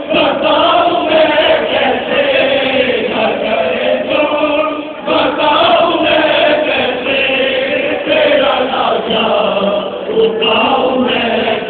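Many voices of mourners chanting a Muharram noha (lament) together, a steady group chant that dips briefly about five seconds in.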